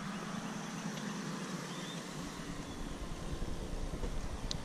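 Steady outdoor background noise with a low rumble that comes in about two seconds in, and a faint click near the end.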